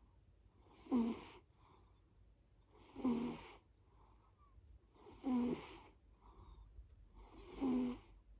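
A sleeping pet snoring: four snores about two and a half seconds apart, with faint breaths between them.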